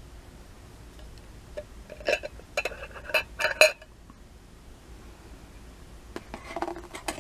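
Screw-top lid of a pickle jar being twisted open: a cluster of sharp clicks and clinks about two to four seconds in, then a few more clinks near the end.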